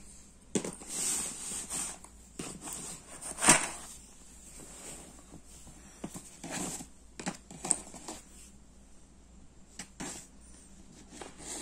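Cardboard jigsaw puzzle pieces stirred and spread by hand, an irregular rustling clatter of small pieces, loudest about three and a half seconds in.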